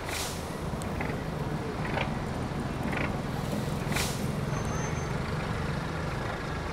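Vehicle engines running at a bus station: a steady low rumble, with short noisy bursts about once a second.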